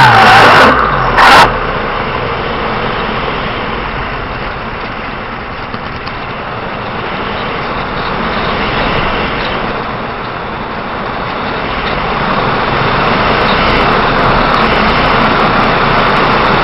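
An RC model's electric motor whine falls away and stops right at the start. A brief loud burst comes about a second in, then a steady rushing noise with no clear pitch.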